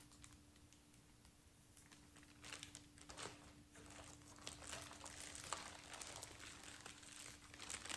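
Plastic packaging of a cross-stitch kit crinkling as it is handled. It is faint for the first couple of seconds, then turns into a run of irregular crackles.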